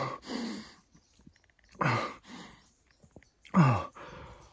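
A man's shaky, heavy breathing muffled by a hand over his mouth: about four voiced exhalations and sighs, two of them falling in pitch, as he is overcome with emotion and shaking after shooting a stag.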